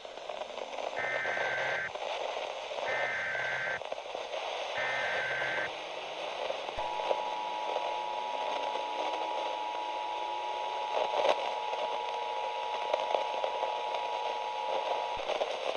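Emergency Alert System tones over a hiss of radio static. First come three short bursts of warbling SAME header data, each about a second long. Then the two-tone EAS attention signal (853 and 960 Hz together) holds steady for about eight seconds.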